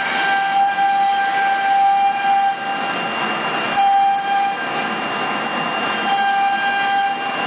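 Single-head 1325 CNC router engraving a wood board: the spindle runs with a steady high whine over the rough noise of the bit cutting the wood. The whine drops out briefly a couple of times.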